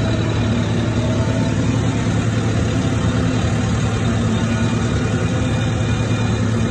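Engine of a large-tyred piece of yard equipment running steadily at idle, heard from its open operator's cab, with a constant low hum.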